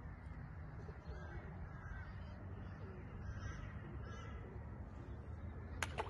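A bird calling in short, faint calls about four times, over a steady low rumble, with two sharp clicks near the end.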